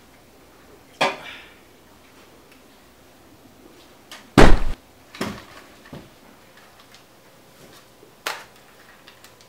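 A single loud bang from a pistol fired about four and a half seconds in. A sharper, smaller clunk about a second in comes from a can set down on a glass table, and a few fainter knocks follow the shot.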